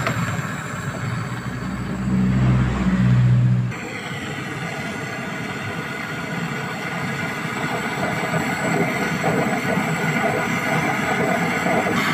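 Handheld gas brazing torch burning with a steady hiss as it heats the copper suction pipe joint on a freezer compressor for brazing. A louder low hum sits under it about two seconds in, lasting under two seconds.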